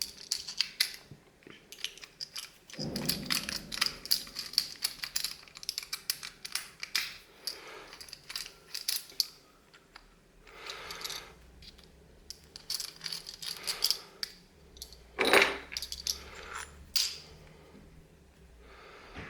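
Small metal parts clicking, clinking and rattling in irregular runs as a padlock and its tools are handled, with a few louder knocks along the way.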